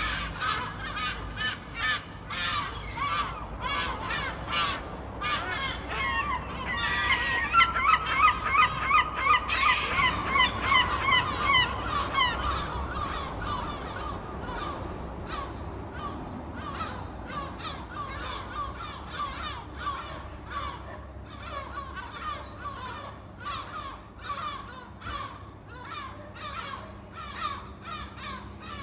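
Seagulls squawking, many calls overlapping throughout, with a loud run of rapid calls about a quarter of the way in. A steady low rumble sits underneath.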